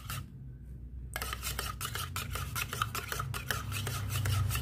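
A metal spoon stirring syrup and milk in a stainless steel mug, clinking and scraping against the sides several times a second. The stirring stops briefly just after the start, then picks up again.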